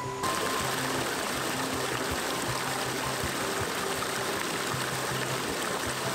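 Small stream cascading over boulders: a steady rush of water that cuts in suddenly just after the start. Background music with sustained notes plays underneath.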